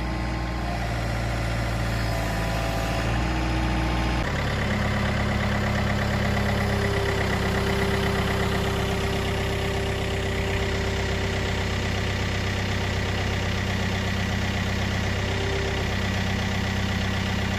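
Excavator engine running steadily as the machine is worked. Its note changes abruptly about four seconds in, then holds steady.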